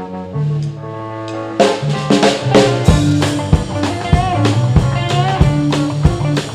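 Blues band playing: held notes at first, then about a second and a half in the drums come in with the full band on a driving beat.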